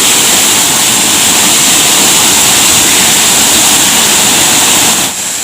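Waterfall: a loud, steady rush of falling water, which drops somewhat in level near the end.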